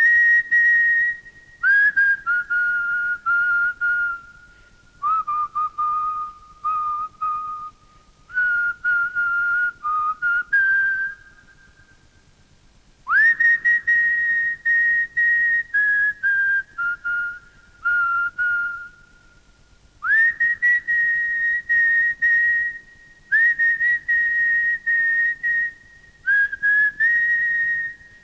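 A solo tune whistled by a person, in phrases that often scoop up into their first note, separated by short pauses, the longest of about two seconds near the middle.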